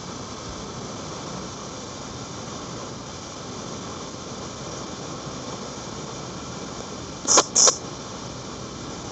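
Steady hiss of background noise, broken about seven seconds in by two short, sharp hissing sounds in quick succession.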